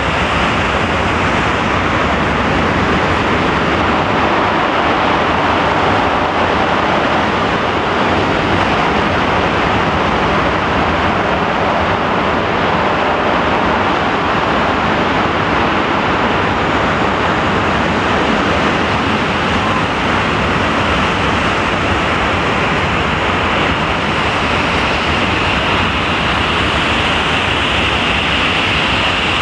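English Electric Lightning's twin Rolls-Royce Avon turbojets running on the ground with the aircraft standing still: a loud, steady rushing noise with a high whine that grows a little stronger near the end.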